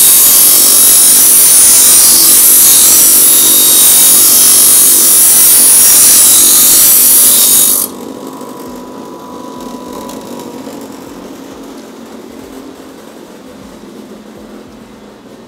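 Bench grinder grinding down the end of a metal moped exhaust header pipe, a loud, dense grinding. About eight seconds in the metal leaves the wheel and the noise drops sharply to the quieter sound of the grinder still spinning, slowly fading.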